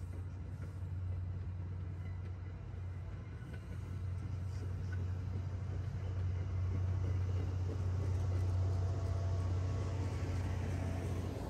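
MBTA commuter rail train rolling past with a steady low diesel drone and rumble, growing louder as the locomotive pushing at the rear of the coaches draws near.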